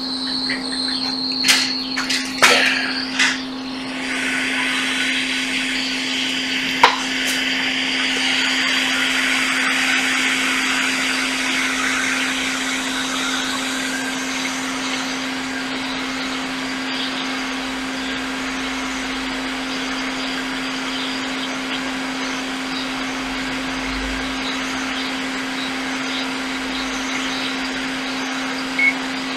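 Hot-air rework station blowing steadily onto a phone logic board, reflowing a newly placed charging IC, with a constant hum beneath. The airflow starts about four seconds in, after a few sharp clicks.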